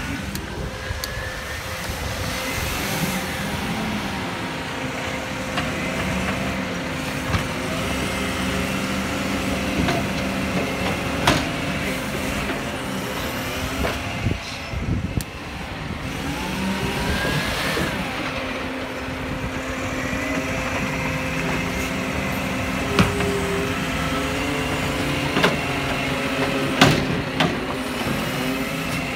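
Side-loading garbage truck running steadily while its automated arm grips, lifts and empties wheelie bins. Rising and falling whines come as the arm moves, and several sharp knocks come as the bins bang against the arm and hopper, mostly in the second half.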